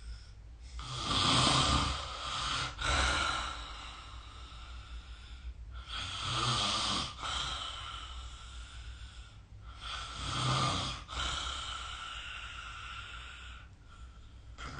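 A sleeping person snoring in a slow rhythm: three loud snores about four to five seconds apart, each followed by a quieter breath.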